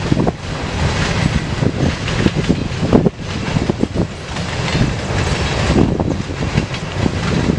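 Loaded CSX hopper cars of a freight train rolling past, their steel wheels giving a continuous rumble crossed by many irregular clacks over the rail joints.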